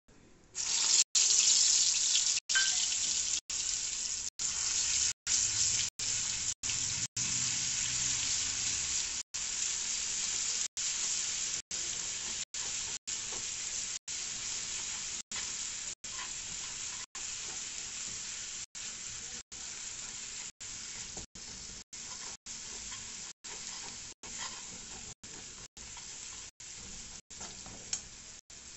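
Red masala paste hits hot oil in a pan about half a second in and sizzles loudly while it is stirred with a spatula. The frying hiss slowly fades, and the sound is broken by short dropouts every second or so.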